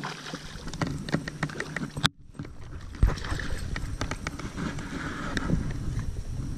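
Handling noise on a small fishing boat: scattered clicks and knocks over a low rumble, with one heavy thump about three seconds in.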